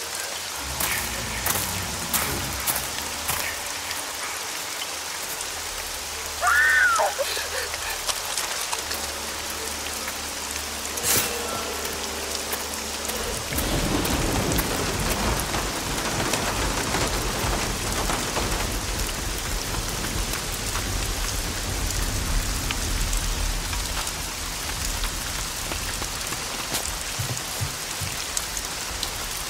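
Steady rain falling, with a short, high wavering cry-like sound about seven seconds in, and a low rumble of thunder that joins about halfway through and carries on.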